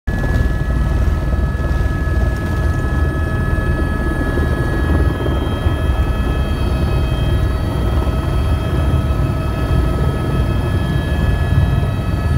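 Helicopter rotor and turbine engine heard from inside the cabin: a loud, steady low rumble with a constant high turbine whine over it, as the helicopter comes in low over the airfield to land.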